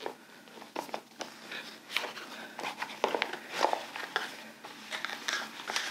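A small cardboard box being opened by hand and its paper inserts pulled out: irregular rustling, scraping and small clicks of cardboard and paper.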